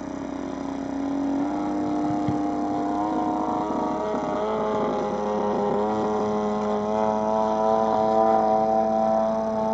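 Radio-controlled aerobatic model airplane's engine running in flight, its buzzing note growing louder over the first few seconds and shifting up and down in pitch in small steps.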